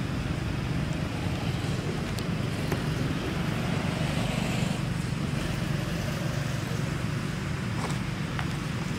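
Steady low rumbling noise with a few faint clicks.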